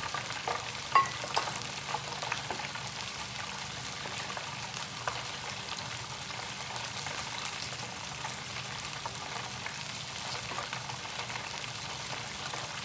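Hot oil sizzling steadily as beer-battered seafood deep-fries, with a few sharp clicks of a utensil in the first few seconds.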